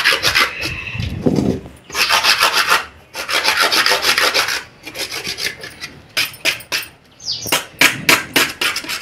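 Sandpaper rasping old paint off a clay flower pot in quick back-and-forth strokes, in runs of a second or two with short pauses between them.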